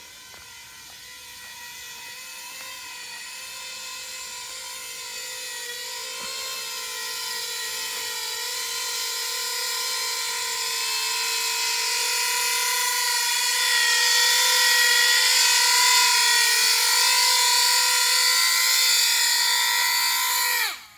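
Coaxial copter's electric motors and contra-rotating propellers whining at a steady pitch, growing steadily louder, then cutting off suddenly near the end as it sets down and the motors stop.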